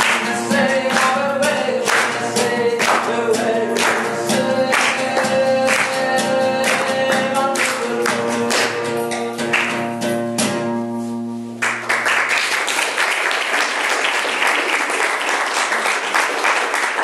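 Live guitar music with strong rhythmic strummed chords that stops a little under twelve seconds in. Audience applause follows.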